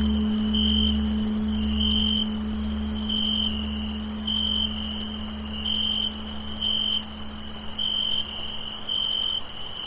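Crickets chirping about once a second over a continuous high insect trill, while the low hum of a tolled meditation bell slowly fades away.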